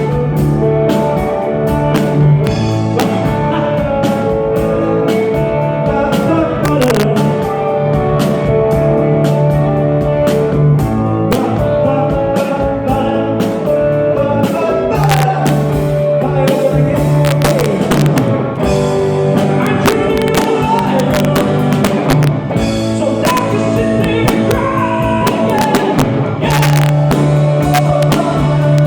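A rock band playing a 1960s mod-style song live, with electric guitar, bass and drum kit, and singing at times.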